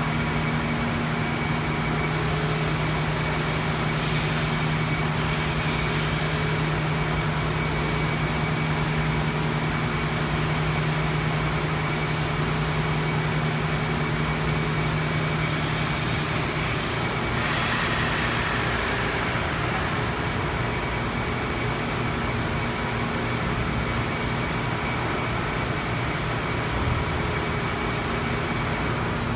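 Industrial machinery running: a steady mechanical hum with several tones over a hiss. A little past halfway the lowest hum drops out and there is a brief rush of hiss.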